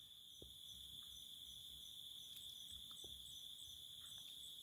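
Faint, steady high-pitched trill of insects, with a few soft ticks.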